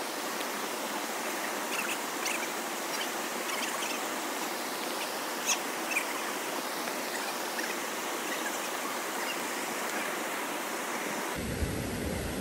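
Steady rush of a waterfall and river flowing over rocks. In the last second a low rumble joins it.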